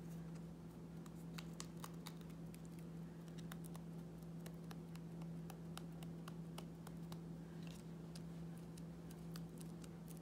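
Faint, scattered clicks and taps of fingers handling a small piece of card on a plastic cutting mat, over a steady low hum.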